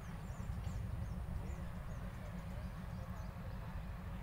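A bird repeating short, high, falling chirps about three times a second, thinning out about halfway through, over a steady low rumble.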